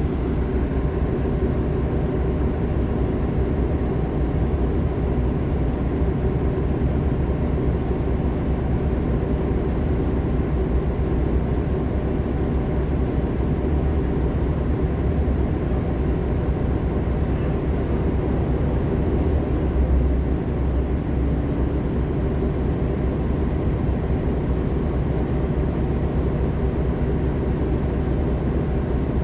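Nova Bus LFS articulated hybrid bus with a Cummins ISL9 diesel and Allison H50 EP hybrid drive, running steadily with a low drone that swells slightly about two-thirds of the way through.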